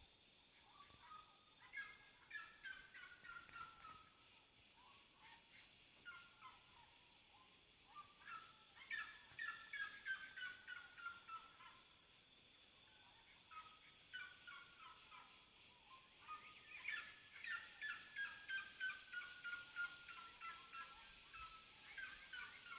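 Birds calling in three long bouts, starting about two, nine and seventeen seconds in, each a rapid run of notes that slides steadily down in pitch over several seconds.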